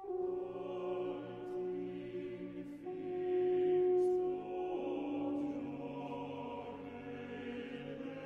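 Choir singing slow, sustained chords of a requiem, the chord shifting every second or two, with a few brief hissing consonants.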